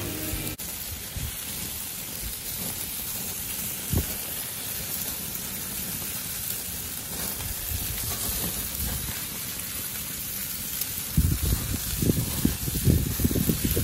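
Pork ribs and chicken legs sizzling over a gas grill's flames, a steady hiss. A single knock about four seconds in, and irregular low rumbling buffets from near the end.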